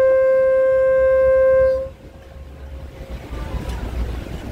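A boat's horn sounding one long, steady blast that cuts off nearly two seconds in. It is followed by the low rumble of the launch's engine and water noise.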